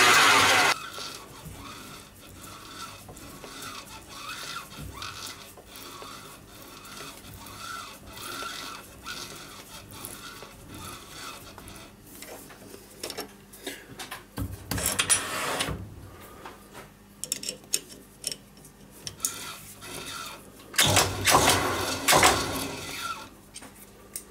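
Metal lathe running while drilling a hole in a small part, then shut off: the spindle noise cuts off sharply under a second in. After that come faint mechanical ticks and clicks, with two louder stretches of noisy rattling later on.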